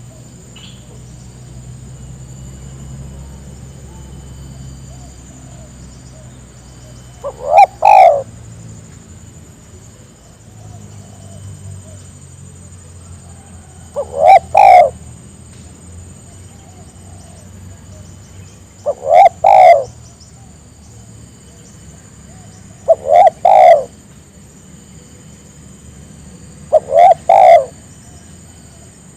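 Spotted dove cooing: five short, loud phrases of two or three notes each, spaced four to seven seconds apart, over a faint steady high tone.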